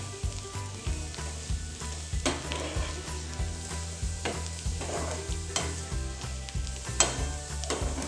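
Chicken pieces, onion and capsicum sizzling in butter in a non-stick frying pan while a slotted metal spatula stirs and tosses them, with occasional sharp scrapes and knocks of the spatula against the pan.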